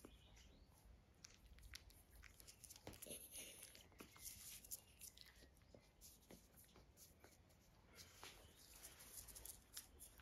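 Faint rustling and scratchy clicks of young puppies scrabbling and tussling on a plush dog bed.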